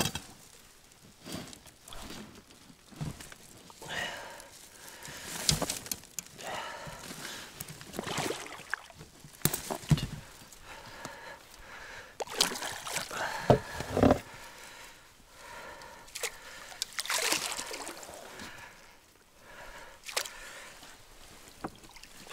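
Water sloshing and splashing at the side of a boat, with scattered knocks and rustling, as a hooked pike is hauled in on a float-circle line and landed.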